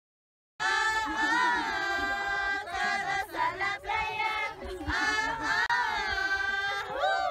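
A group of Uros women singing a song together, voices in unison with long held and sliding notes; the singing starts about half a second in.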